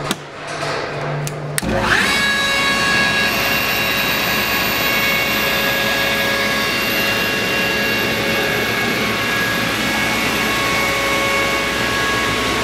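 Atlas Copco GX11 FF rotary screw air compressor starting up: a click about a second and a half in, then a quick rising whine as its 15 hp three-phase electric motor spins up. It then runs steadily and loudly, with a steady whine and a very high whine over the running noise.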